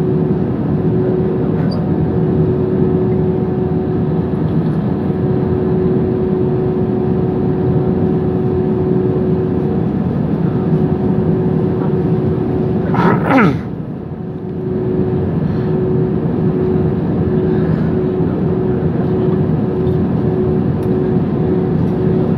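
Airbus A320 cabin noise at the window on the ground, the engines at idle giving a steady hum with a constant tone. About 13 seconds in, a brief falling sweep in pitch, after which the noise dips for a moment.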